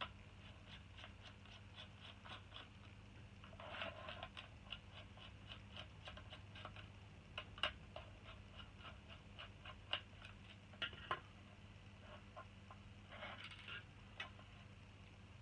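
Faint clicking of a small screwdriver turning screws out of a plastic satellite-receiver case, about three clicks a second, with a couple of brief scrapes.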